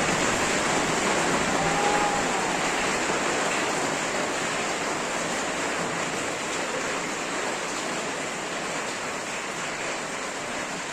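Rain falling steadily, a dense even hiss that eases slightly toward the end.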